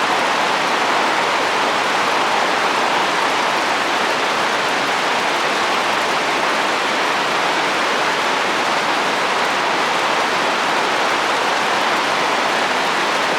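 Heavy rain pouring on a roof with wind, a steady, dense hiss with no single drops standing out.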